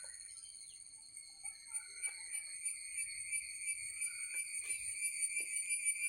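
Insects droning in a mangrove forest: one high, steady, ringing tone that begins to pulse rapidly and grows louder about a third of the way in, with a few faint short chirps.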